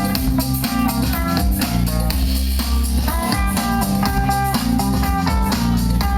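Rock band playing an instrumental passage: guitar picking quick runs of short notes over bass guitar and a drum kit keeping a steady beat.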